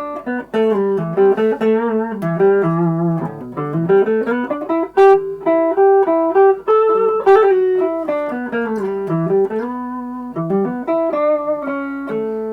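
Electric guitar on its neck humbucker, a Gibson Les Paul Tribute played through a Fender Vaporizer amp, playing a single-note lead melody. The line has sustained notes and several string bends.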